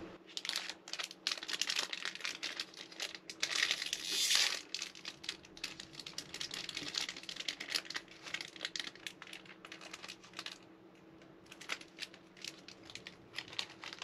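Dense crinkling and rustling, like something being crumpled or handled, loudest about four seconds in and thinning to scattered crackles near the end, over a faint steady hum.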